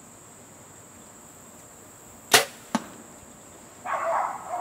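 A compound bow shot: a sharp snap as the string is released, then about half a second later a smaller sharp smack as the arrow strikes the foam 3D deer target. A rough, noisy sound starts about a second later and runs to the end.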